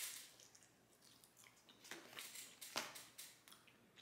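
Faint close-up chewing of a bite of flatbread with guacamole: soft wet mouth clicks and small crunches, the sharpest a little under three seconds in.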